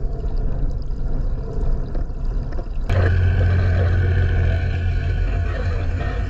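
Muffled underwater noise picked up through a camera housing. About three seconds in, a louder steady low drone of a boat motor heard through the water sets in.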